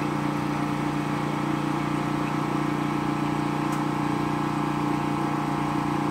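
Electric water pump motor running with a steady hum, pumping water up into rooftop drums that are nearly full.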